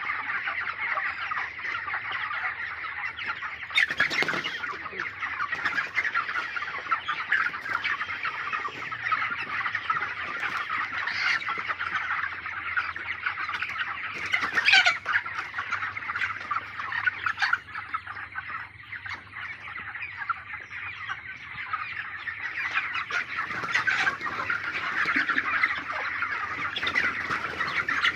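A large flock of chickens clucking and chirping continuously, many birds calling over one another, with a brief louder knock about four seconds in.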